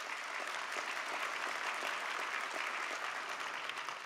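Audience applauding, a steady spell of many hands clapping.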